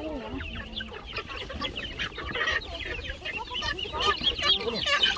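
A flock of birds clucking and chirping: many short calls overlapping, getting busier about four seconds in.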